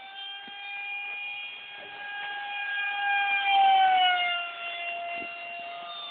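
Radio-controlled model jet whining as it flies past: a steady high tone with overtones that grows louder about three and a half seconds in, then drops in pitch as it passes.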